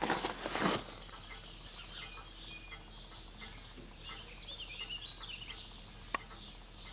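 Footsteps rustling through brush for the first second, then birds chirping and warbling in the background, with a single sharp click about six seconds in.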